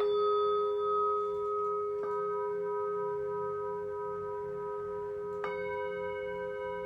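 Singing bowls struck three times: at the start, about two seconds in and about five and a half seconds in. Each strike adds new ringing tones over the ones still sounding, and the long ringing wavers steadily.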